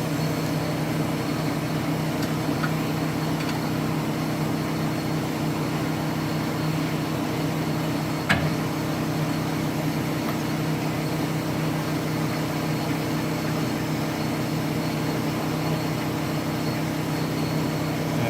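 Steady low machine hum, even and unchanging, with a single sharp click about eight seconds in.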